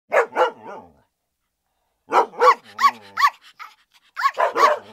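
A dog barking: short, loud barks in three bunches, two at first, about four in the middle and two or three near the end.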